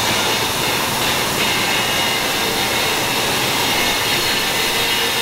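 Steady, loud rushing hiss of air-like machinery noise with a faint high whine, even throughout.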